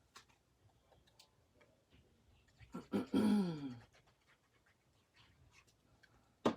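A short vocal sound of just under a second, about three seconds in, sliding down in pitch. Light clicks and taps sit around it, with a sharp tap near the end.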